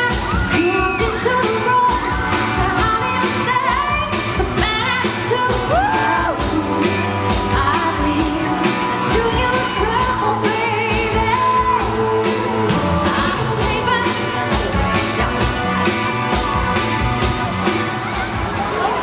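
Live pop song: a woman singing over a full band with a steady drum beat, through a PA.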